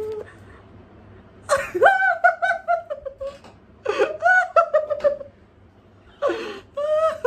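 A man's excited high-pitched squeals of laughter in three bouts, each starting with a breathy gasp and breaking into quick pulses that fall slightly in pitch.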